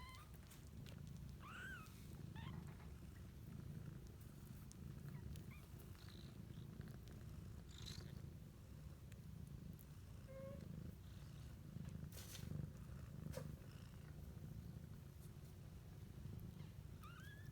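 Cat purring steadily and faintly, with a few brief high squeaks from newborn kittens near the start and again near the end.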